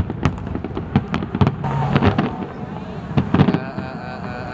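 Aerial fireworks bursting in rapid, irregular bangs and crackles, densest in the first second and a half, with a few more bangs a little past the middle.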